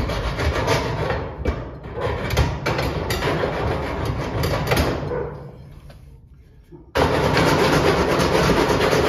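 Angle grinder with a cutoff wheel cutting a steel latch: it switches on abruptly and runs for about five seconds, winds down, then starts again about seven seconds in.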